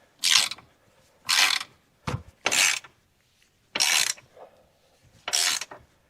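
Hand ratchet being worked in short strokes, about six over the stretch with a short pause between each, tightening the bolts of a rear luggage rack; one low thud a little over two seconds in.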